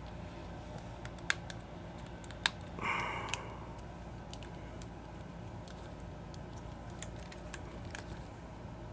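Scattered small plastic clicks and ticks as an Xbox Elite 2 controller's shell and clips are worked loose by hand, with a brief rasp about three seconds in, over a low steady hum.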